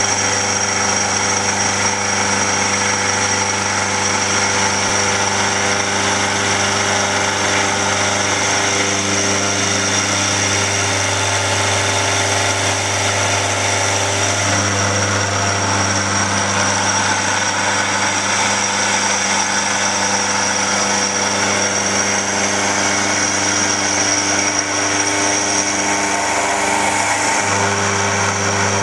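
XYZ SMX3500 milling machine running, its end mill cutting a bronze casting held in a vise: a steady machine hum with a high whine, holding even throughout.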